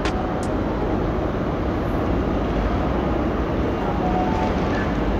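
H0-scale model train, a red ÖBB electric locomotive hauling Railjet coaches, pulling out and running along the track with a steady rolling rumble. Two sharp clicks come near the start, about half a second apart.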